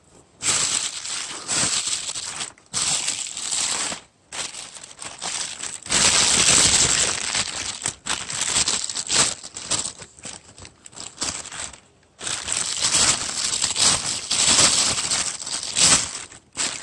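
Loud, close rustling and crunching of plants, in irregular bursts a few seconds long with brief pauses between.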